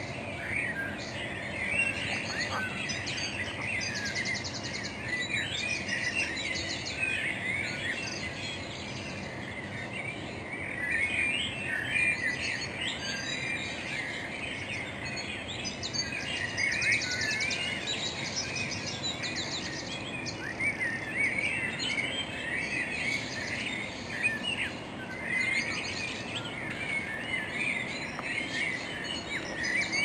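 Dawn chorus of many songbirds singing and chirping at once, with short, fast, high buzzing trills recurring every few seconds over a steady background hiss.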